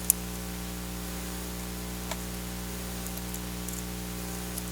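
Steady electrical hum and hiss, broken by a sharp click just after the start, another about two seconds in, and a few faint ticks near the end: light handling clicks of a screwdriver and small laptop parts.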